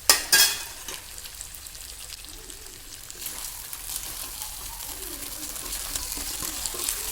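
Chicken pieces frying in a pan of oil and freshly added butter, a steady sizzle that grows louder from about three seconds in. Two sharp clicks at the very start.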